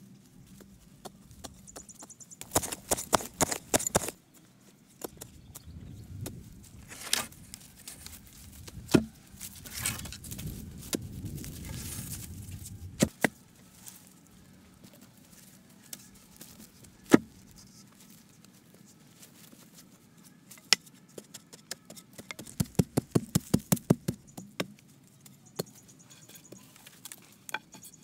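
Hand work on a frame of wooden poles: single sharp knocks of wood on wood, and two bursts of rapid tapping, one near the start and one toward the end, with rustling in between.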